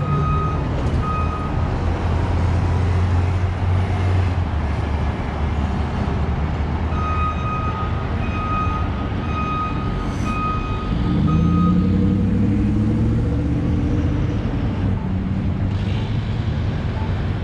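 Construction vehicle's reversing alarm beeping at an even pace of a little over one beep a second, over the steady low running of a heavy engine. The beeping stops for several seconds and starts again, and about eleven seconds in the engine revs up.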